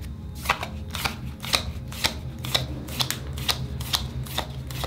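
Trading cards from a freshly opened Digimon booster pack being flipped through one at a time, each card giving a short, sharp snap or slide, about two a second.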